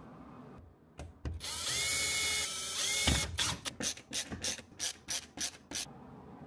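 A drill motor whirs for under two seconds from about a second in, its pitch rising twice. Then a ratcheting screwdriver clicks about ten times, roughly four a second, driving the screws that hold a plate to a wall.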